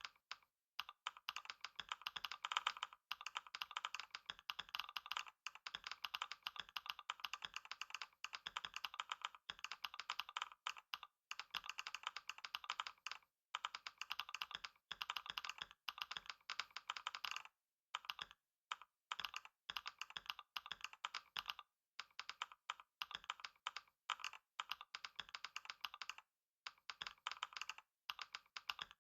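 Computer keyboard typed on fast and continuously, a dense stream of key clicks with a few brief pauses.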